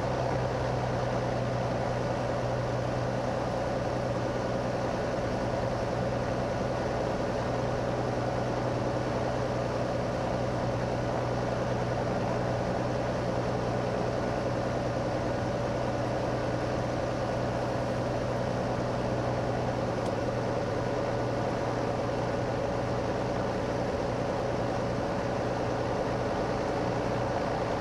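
Cirrus SR22's six-cylinder piston engine running steadily, heard from inside the cabin as an even drone with a constant low hum.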